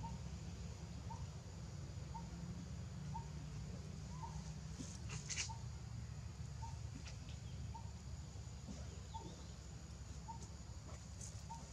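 A bird calling, a short note repeated about once a second, over a steady low background hum, with a brief scratchy rustle about five seconds in.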